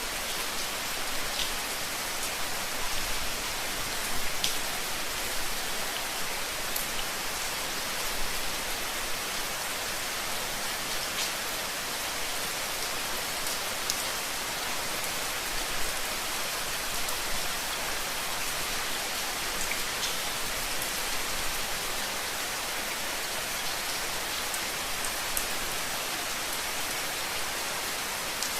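Steady rain falling, an even hiss with the odd sharper tick of single drops striking a surface.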